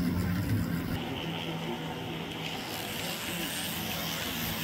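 Model train running on a layout: a steady low hum with a rushing whir of wheels and motor as a model diesel locomotive passes close by.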